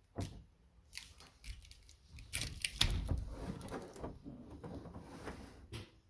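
Irregular metal knocks, clinks and scrapes of a painted roof-rack crossbar being handled and tried into the rack frame, busiest and loudest near the middle.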